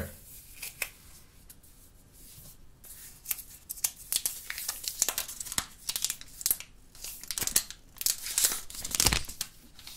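Clear plastic protective film on a new HTC One M8s smartphone being handled and peeled, crinkling and crackling in quick irregular crackles. The crackles are sparse at first and come thick and fast from about three seconds in.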